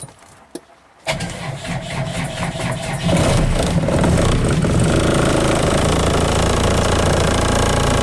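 Land Rover Series 3 engine cranked on the starter with a sluggish battery for about two seconds, then firing about three seconds in and running steadily.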